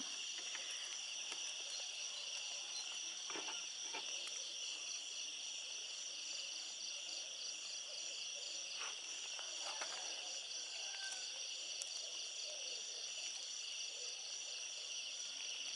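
Steady chorus of night insects such as crickets: several overlapping high, fast-pulsing trills that hold an even level throughout. A few faint soft knocks come about three to four seconds in and again around nine to ten seconds.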